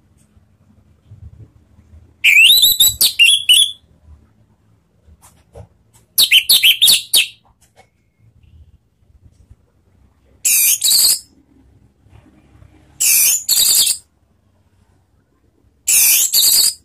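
Orange-headed thrush singing in five loud, separate phrases. The first two are whistled notes sliding up and down in pitch; the last three are shorter and scratchier, with quiet pauses between phrases.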